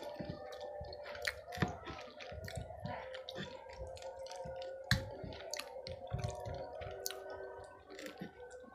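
Close-miked chewing of batagor in sauce: soft, wet, squishy mouth sounds, with several sharp clicks of a metal fork against the plate.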